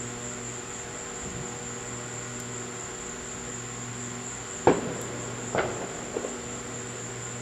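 Two sharp metal clinks past the middle and a lighter tap shortly after, from lathe saddle parts (a feed screw and nut) being handled, over a steady high-pitched whine and low hum.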